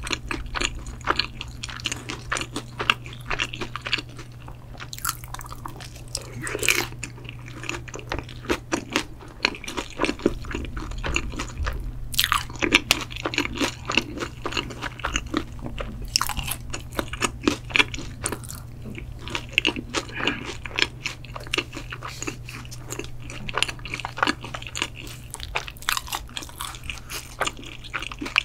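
Close-miked eating: steady chewing with many small crunches and a few louder crunchy bites.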